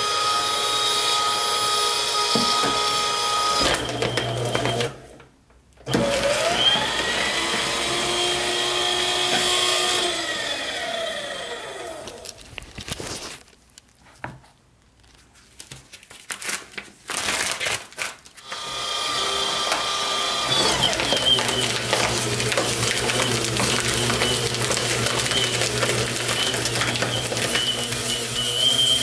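AmazonBasics 12-sheet cross-cut paper shredder motor running on a 20-sheet stack, well over its 12-sheet maximum, with its overload light lit. It runs for a few seconds and stops, starts again with a whine that climbs and then sags, and falls silent. After a stretch of clicks from the switch and paper handling, it runs steadily again from about 20 seconds in.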